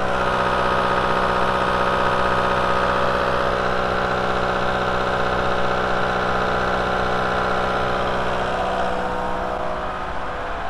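VW 1.9 L ALH TDI diesel engine running steadily while it warms up, a dense, even engine drone that gets a little quieter near the end.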